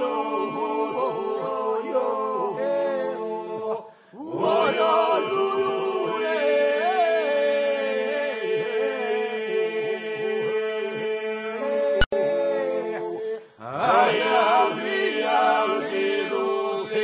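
Albanian polyphonic folk singing in the Gjirokastra style: a chorus holds a steady drone while lead voices wind above it. The voices break for a breath about four seconds in and again near the end, and a single sharp click cuts through about twelve seconds in.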